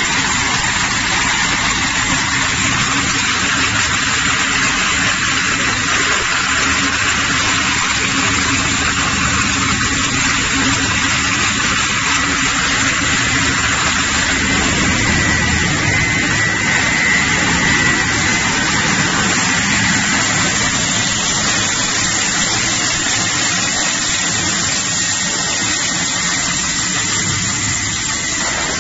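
Single-shaft can shredder running, its toothed rotor tearing up drink cans in a loud, steady grinding din with a faint high whine running through it. The din thins a little near the end as the hopper empties.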